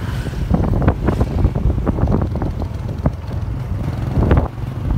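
Wind buffeting the microphone over the low rumble of a moving vehicle, with irregular bumps and gusts.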